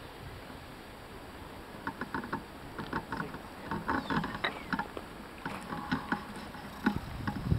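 Irregular run of short clicks and knocks over a steady background of outdoor noise, starting about two seconds in.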